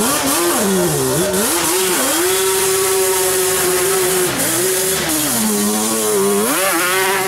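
ATV (quad) engine revving up and down on a muddy trail: its pitch swings in the first two seconds, holds steady at high revs for a couple of seconds, drops about five seconds in, then climbs again near the end as the quad passes close.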